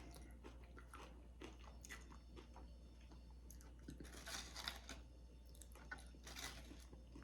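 Faint close-up chewing and crunching of tortilla chips with dip, in scattered small crunches that bunch up about four seconds in and again near six and a half seconds.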